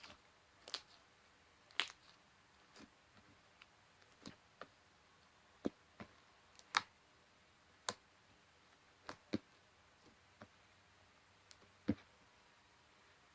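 Slime being squeezed and played with, giving faint, scattered sharp clicks and pops at irregular intervals, about one or two a second.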